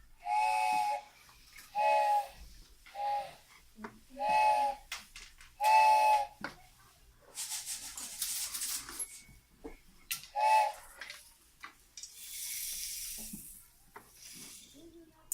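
Foley sound effects made by hand: six short toots of a whistle sounding several pitches at once, spread over the first eleven seconds, with two bursts of hissing, one about seven and a half seconds in and one about twelve seconds in.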